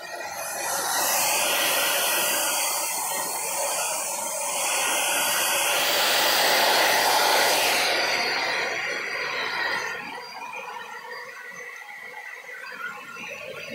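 Handheld hair dryer blowing: a steady rush of air that starts just after the opening, is loudest for the first eight seconds, then drops to a weaker rush about ten seconds in.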